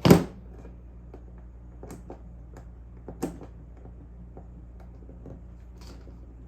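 Handling noise on a workbench as multimeter probes are set to a circuit's positive and negative terminals: one sharp knock at the start, then a few light clicks and taps. A steady low electrical hum runs underneath.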